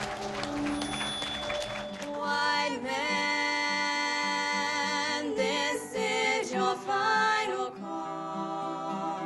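Applause dies away over the first two seconds, then two young women sing together into microphones, holding long notes.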